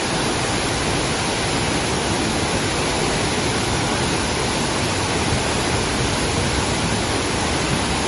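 Large waterfall falling over a rock face into a pool: a loud, steady rush of water.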